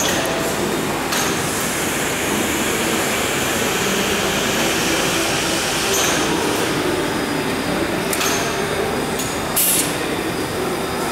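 Steady mechanical running noise from a FAMATEC pneumatic reel-handling manipulator and its air supply, with several short hisses of air as the arm is steered and its mandrel grips the core of a paper reel.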